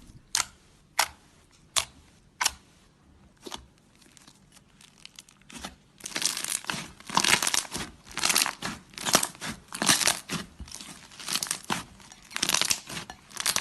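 Crunchy ASMR material being handled and pressed, crackling. A few separate crisp crackles come first, then from about halfway a dense run of crunching, crackling.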